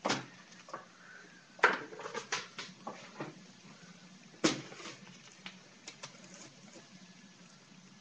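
Sharp knocks and clatters of hard objects being handled and set down, with lighter taps in between; the loudest knocks come about a second and a half in and about four and a half seconds in.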